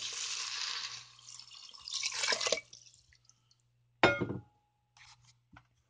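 Water poured into a rice cooker's inner pot over raw rice, a steady splashing pour for about a second that tails off, with a second short splash about two seconds in. About four seconds in, one sharp clink.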